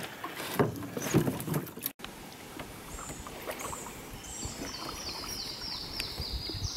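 Canoe paddle strokes in river water, with a couple of sharp knocks of the paddle on the hull, in the first two seconds. Then a quieter steady background of moving water, over which a bird sings a run of short, high, falling notes, several a second, through the second half.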